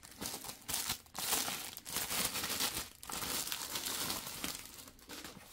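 Clear plastic bag crinkling and rustling as hands pull it open and off a cardboard box, in irregular crackles with a short lull about three seconds in.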